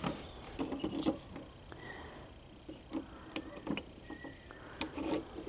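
Scattered light clicks, taps and knocks of hand-work on a car door and its metal parts, irregular and a few to the second at most.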